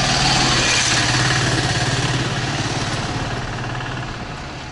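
A motor vehicle's engine running close by with a steady low note. It is loudest in the first second or so, then fades steadily toward the end as the vehicle draws away.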